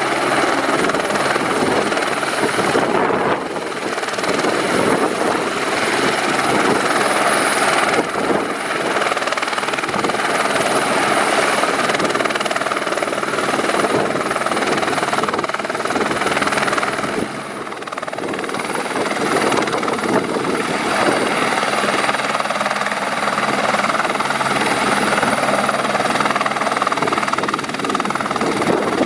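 Airbus H125M helicopter running, its single turboshaft turbine whining steadily over the dense noise of the rotor. The loudness dips briefly three times.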